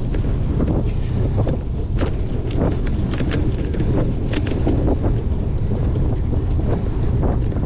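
Wind rushing over the microphone of a cyclocross bike ridden at race speed, with irregular clicks and rattles from the bike over rough ground.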